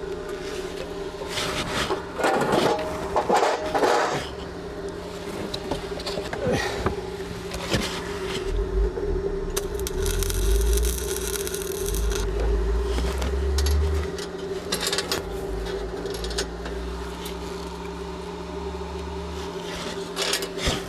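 Metal scraping and clinking, loudest a couple of seconds in, over a steady hum, with a low rumble through the middle.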